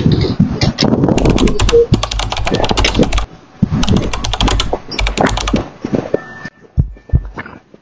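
Dense crackling clicks in clusters, picked up by a doorbell camera's microphone as a person walks through snow. In the last second or so, deep thumps begin, coming in pairs.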